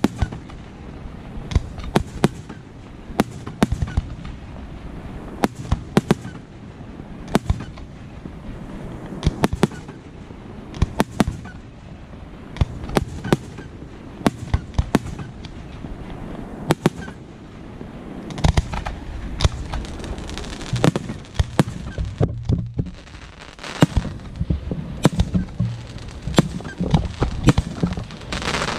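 Professional fireworks display: shells bursting with sharp bangs in quick irregular clusters over a continuous low rumble, with a brief lull about two-thirds of the way through.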